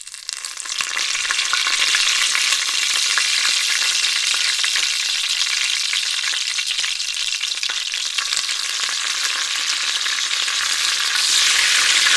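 Tadka being tempered: whole spices and fresh curry leaves sizzling and crackling in hot oil in an aluminium pressure cooker, stirred with a wooden spoon. The sizzle starts suddenly as the leaves hit the oil and grows louder about eleven seconds in.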